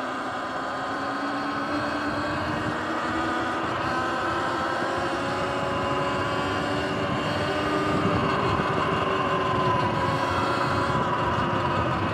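Sur-Ron electric dirt bike riding at a steady cruise: the electric motor's whine, several thin tones drifting slowly in pitch, over tyre and wind noise. It gets a little louder about eight seconds in.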